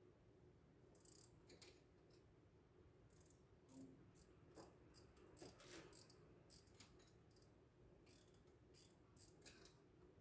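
Near silence with a scattering of faint, irregular small clicks and ticks from hands and tools working in a forklift's engine compartment.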